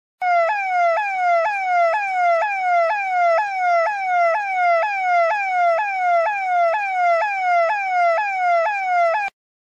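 Police-style electronic siren sound effect, a fast wail whose pitch sweeps down and snaps back up about twice a second. It stops abruptly near the end.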